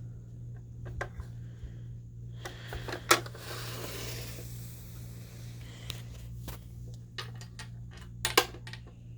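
Scattered clicks and knocks of a treat puzzle box being nosed and pawed by a dog, with a louder sharp clack about three seconds in and another near the end. A steady low hum runs underneath.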